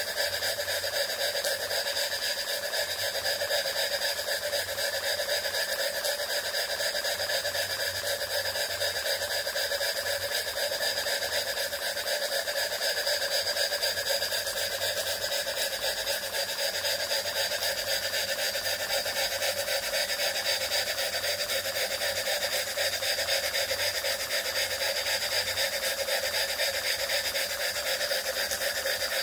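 Modified Jensen 20G model steam engine running steadily under steam, its moving parts giving a fast, even ticking and rattle that holds the same speed throughout.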